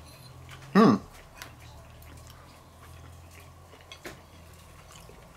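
Faint clicks of a fork and a low steady hum, with one short voice sound falling in pitch about a second in.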